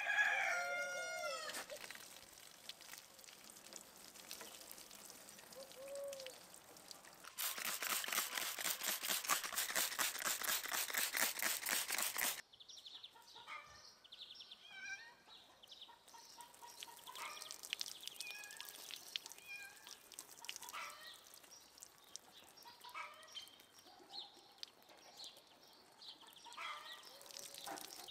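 A rooster finishes a crow at the start. Scattered chirps of small birds follow. In the middle a louder rushing hiss runs for about five seconds and cuts off suddenly.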